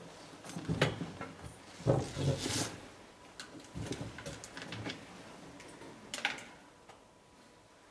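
Handling noise of people shifting at the tables: scattered knocks and rustles, loudest about two seconds in, with another sharp knock around six seconds in.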